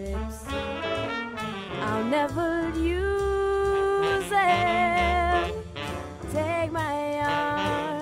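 A young female singer sings a song over backing music with a jazzy, swing feel and a steady bass line. She holds long notes with vibrato, the longest about three seconds in.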